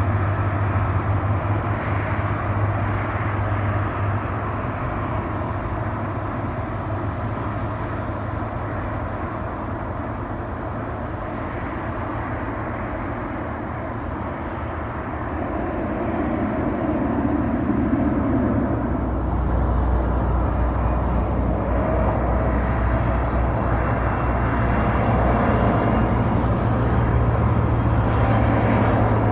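Azul ATR 72-600 turboprop with Pratt & Whitney PW127F engines landing and rolling out on the runway, its propeller drone easing off after a few seconds. Later it gives way to an Embraer E195-E2 jet on approach: a low rumble with a faint, slowly rising whine.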